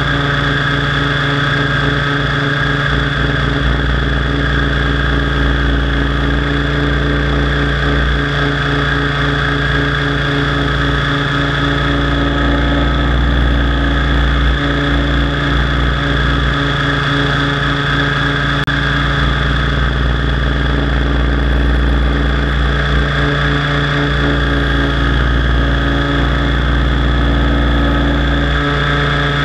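Align T-Rex 700 DFC radio-controlled helicopter in flight: its motor and main rotor running steadily, a loud drone with several steady pitched tones over a low rumble.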